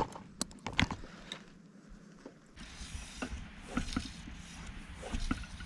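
Sharp clicks and light knocks of fishing gear, the landing net and rod, being handled on a pontoon boat. About two and a half seconds in the sound changes to a steady hiss with a low rumble and a few scattered knocks.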